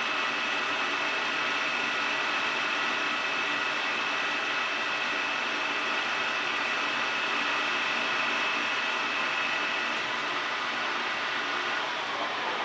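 Metal lathe running while a carbide-insert boring bar cuts inside a turning steel tube: a steady machining noise with a thin high whine from the cut. The whine stops about ten seconds in as the tool leaves the bore, and the lathe keeps running.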